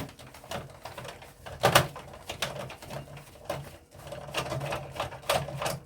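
Screwdriver working screws out of the plastic casing of a Sky satellite box: scattered light clicks and scrapes, one louder click a couple of seconds in.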